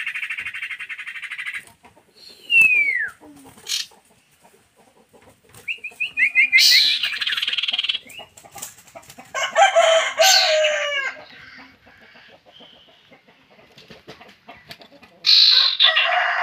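Common ioras, male and female, calling. First comes a rapid buzzy trill, then a single falling whistle, then a run of short rising notes that breaks into another trill. Two harsher, lower calls follow, about 10 and 15 seconds in.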